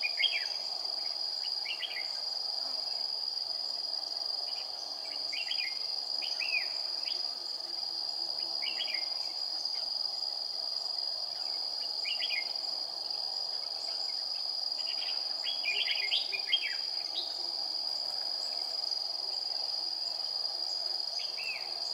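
Steady high-pitched insect drone, with short chirpy phrases of red-whiskered bulbuls every couple of seconds and a quicker run of calls about fifteen to seventeen seconds in.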